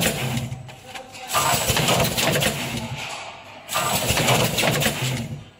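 Automatic vertical pouch packing machine running through its bagging cycle: a loud noisy surge about every two and a half seconds as each pouch is filled, sealed and dropped, over a steady low motor hum.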